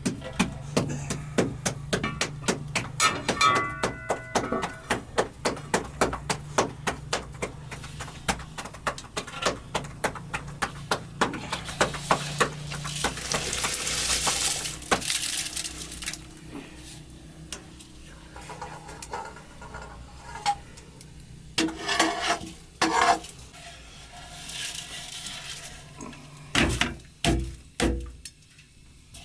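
Kitchen utensils clinking against pots and dishes during cooking: a quick, even run of taps, about three a second, for the first twelve seconds, then a short rushing scrape and scattered clinks, with a few dull thumps near the end.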